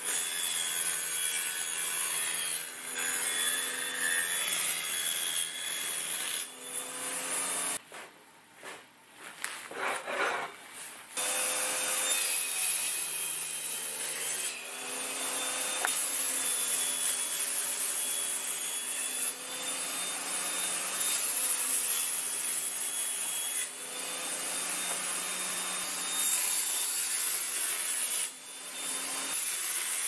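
Wood being sawn: a steady cutting noise that pauses briefly about eight seconds in, then carries on.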